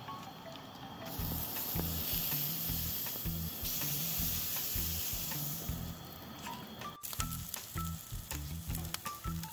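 Butter sizzling on a hot camp-stove griddle as it is rubbed across the plate, loud for several seconds from about a second in, then dropping back. After a cut, softer frying on the griddle continues, with background music throughout.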